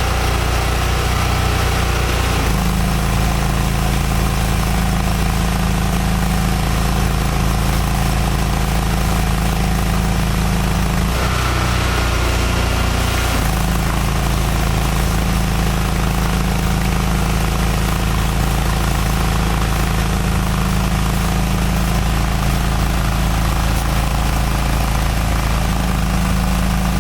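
Hydro Tek hot-water pressure washer's 30 hp Kohler engine running steadily, with a brief change in its note about eleven seconds in that lasts about two seconds.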